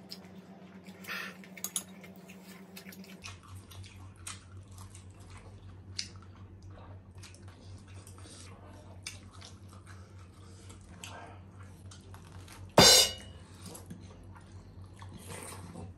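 Close-miked eating sounds: chewing and scattered light clicks of a spoon and fork against a plate and bowls, with one much louder sharp clink near the end. A low hum runs underneath.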